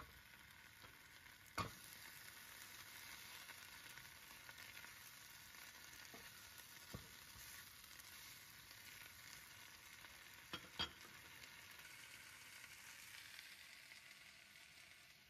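Spinach sizzling as it is sautéed in a frying pan and stirred with a wooden spatula, with a steady quiet hiss and a few sharp knocks, twice in quick succession near the end.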